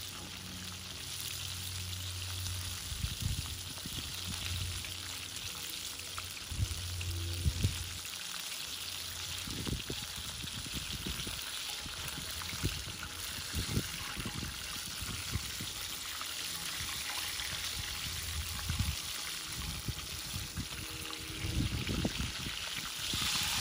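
Chicken drumsticks deep-frying in hot oil in a cast iron skillet, a steady sizzle, with scattered low knocks as metal tongs turn the pieces.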